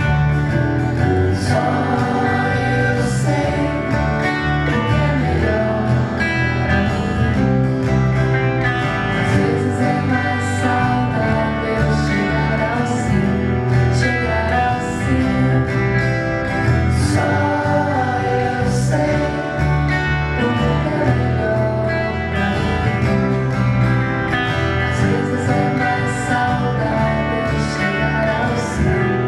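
Live band music led by guitar, playing steadily throughout.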